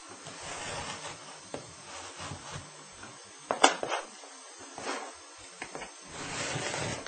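Scissors cutting through a layer of fabric, with the cloth rustling as it is handled and a few sharp snips in the middle.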